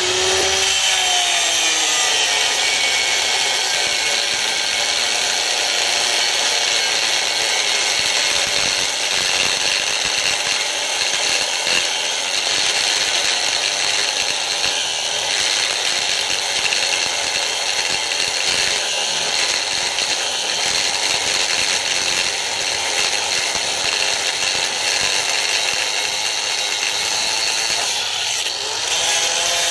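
An angle grinder with a thin cut-off disc cuts steadily through the steel bearing cap of a vehicle driveshaft U-joint. Its pitch drops as the disc bites in at the start, and near the end it eases off briefly and spins back up.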